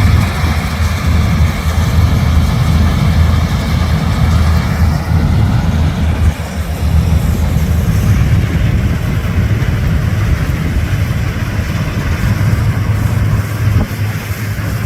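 Combine harvester's diesel engine running steadily, a loud low rumble.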